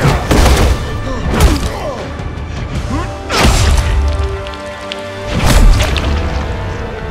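Designed fight sound effects: four heavy punch impacts with deep booming low end, near the start, about a second and a half in, a little past the middle, and near the end, over dramatic action music.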